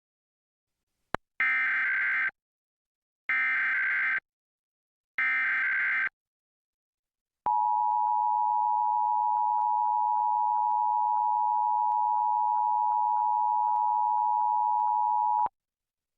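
Emergency Alert System test signal. After a click about a second in come three short bursts of SAME header data tones, each about a second long, then the two-tone EAS attention signal (853 and 960 Hz) held steady for about eight seconds before it cuts off.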